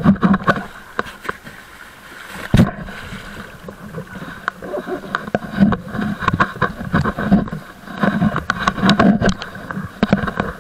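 Water splashing and sloshing against a small boat's hull, with irregular knocks and one sharp knock about two and a half seconds in.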